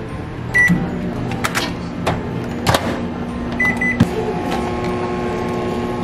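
Microwave oven keypad beeping once as a button is pressed, then the oven starts and runs with a steady hum. A few sharp clicks follow, then three quick beeps near the four-second mark, and a second steady hum joins soon after.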